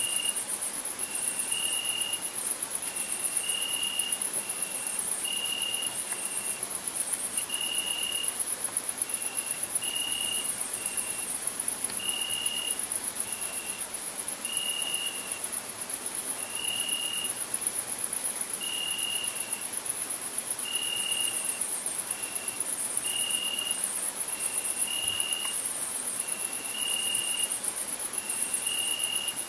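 Crickets chirring continuously in a fast, high-pitched trill. A lower, short note repeats in pairs about every two seconds alongside them.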